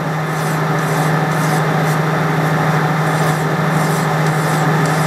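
A hand file rasping against a metal workpiece spinning in a metal lathe, in repeated strokes, over the steady hum of the running lathe.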